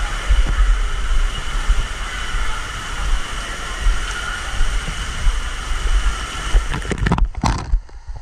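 Steady rush of water spraying and splashing from an indoor waterpark play structure. Near the end the rush drops off abruptly and a few sharp knocks follow.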